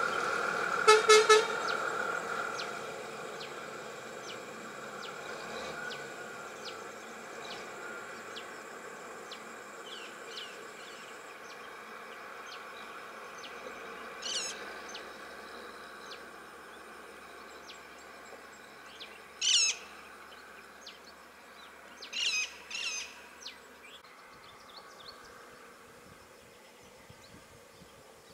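Birds calling in short, sharp chirps over the steady hum of idling vehicle engines, which fades over the first several seconds. The loudest sound is a brief, rapidly pulsed tone about a second in.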